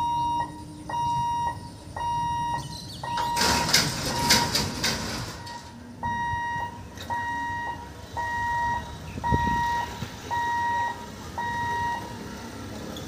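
Level-crossing warning hooter sounding long electronic beeps about once a second, the alarm that goes with the crossing barriers moving; it stops near the end. For about two seconds in the middle a loud rushing noise covers it.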